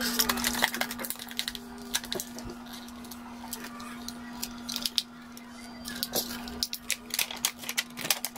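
Blue PVC heat-shrink wrap on an 18650 lithium-ion battery pack being slit with a utility knife and pulled off, crinkling and crackling in quick irregular clicks over a steady low hum.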